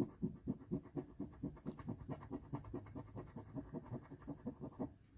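Scratch-off lottery ticket being scratched, quick back-and-forth rasping strokes at several a second, scraping off the coating to reveal the prize. The strokes stop just before the end.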